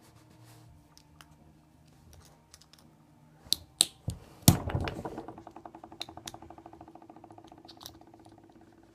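Small plastic clicks from a disposable lighter being handled and taken apart, then a loud knock about halfway through as a hard piece hits a hard surface, followed by a rapid rattle that dies away over about three seconds, like a small part spinning down to a stop.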